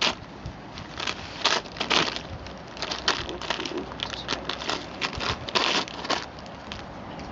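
A striped paper sweet bag crinkling and tearing as a dog chews and rips at it: irregular crackling rustles, several a second.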